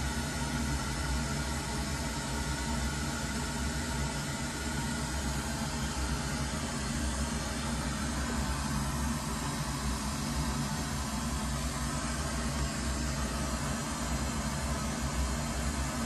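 Full-range pink noise played through studio loudspeakers as a test signal for a real-time analyser room measurement, a steady hiss with a heavy bass rumble.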